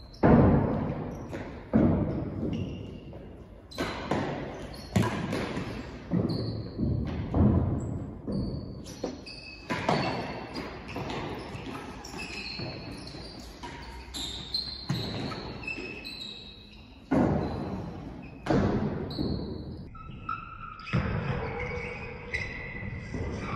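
Real tennis rally in an enclosed court: the hard ball struck by wooden racquets and bouncing off the walls and floor, a sharp echoing crack about every second or two.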